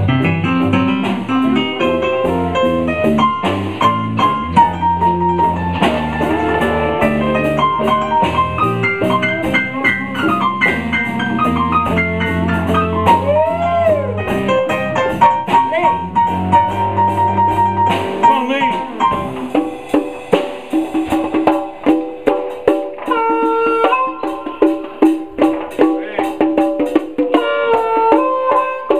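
Live blues band playing an instrumental passage with keyboard, melodic lead lines, bass and drums. About two-thirds of the way through, the bass and drums drop out, leaving a steady clicking percussion beat under sustained melodic notes.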